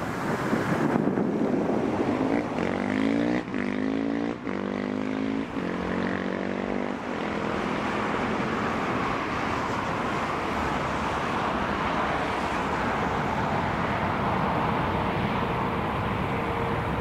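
Jet airliner engines on the runway. A rising whine of several tones climbs over a few seconds, then gives way to a steady, even jet noise.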